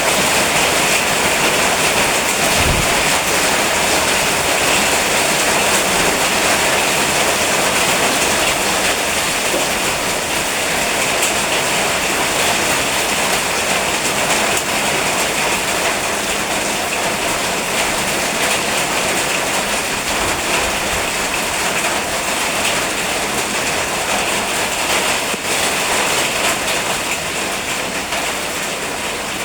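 Steady rain falling hard and evenly, a dense, unbroken patter.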